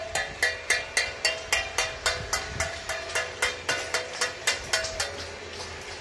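Stainless steel plate (thali) being beaten in a steady rhythm, about four ringing metallic strikes a second, the strikes dying away about five seconds in.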